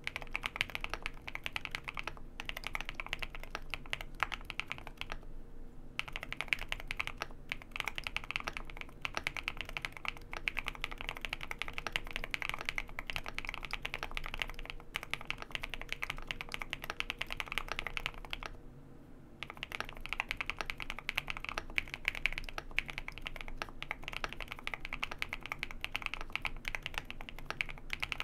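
Steady fast typing on a Wind Studio Wind X98 mechanical keyboard with lubed and filmed JWK Hoshizora linear switches: a dense run of keystroke clacks, switches that carry a fair amount of contact noise. The typing pauses briefly twice, about six seconds in and again around nineteen seconds.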